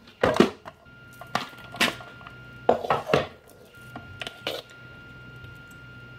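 Knocks and clatter of a plastic food-processor bowl, lid and spatula being handled, with several sharp separate knocks over the first five seconds. After that only a faint steady hum remains.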